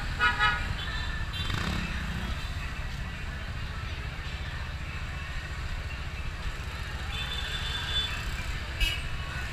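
Street traffic noise: a steady low engine rumble of motorcycles and cars, with crowd voices along the road and a few brief higher pitched sounds.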